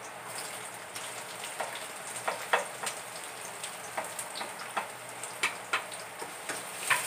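Garlic frying in hot oil in a wok: a steady sizzle with many sharp pops and crackles, getting louder near the end as sliced onion is scraped into the pan.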